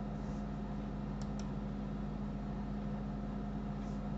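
Steady low electrical hum and hiss of the recording background, with two faint computer mouse clicks a little over a second in.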